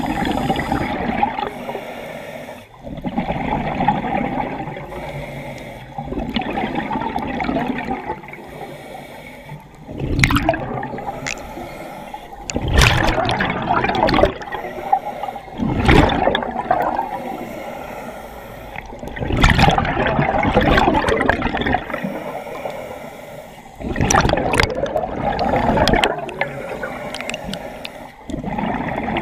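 Scuba regulator breathing heard underwater through a camera housing: repeated cycles of hissing inhalation and gurgling bursts of exhaled bubbles, one every few seconds.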